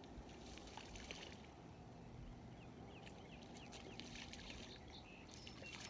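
Faint outdoor ambience: a steady low wind rumble on the microphone with many short, scattered bird chirps, and a few brief higher whistles near the end.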